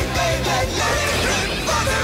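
Instrumental stretch of a pop-rock theme song, playing steadily loud with no words heard.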